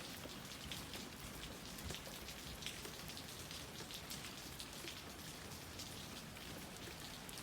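Rain falling steadily, a constant hiss with many small raindrop ticks.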